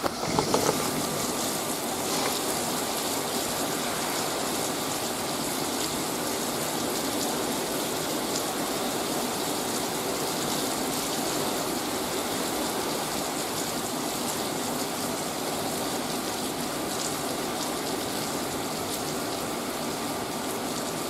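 Heavy rain pouring down in a severe thunderstorm: a steady, dense rush of falling water.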